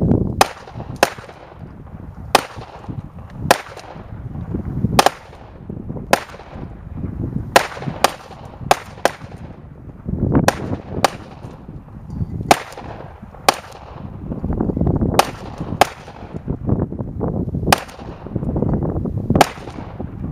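A run of sharp shots cracking one after another, roughly one a second and sometimes in quick pairs, over a low rumble.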